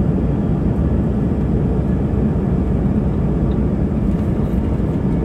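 Steady low drone of a passenger jet in cruise, heard inside the cabin: engine noise and rushing air, even and unbroken.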